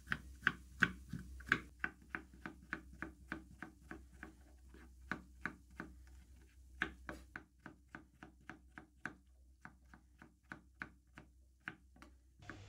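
Chef's knife chopping tomatoes on a wooden cutting board: quick, even taps of the blade on the board, about three a second, turning sparser and softer with a couple of short pauses in the second half.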